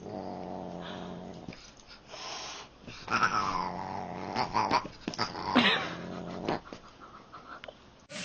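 A cat growling in a low, steady drone, broken by a couple of yowls that slide down in pitch.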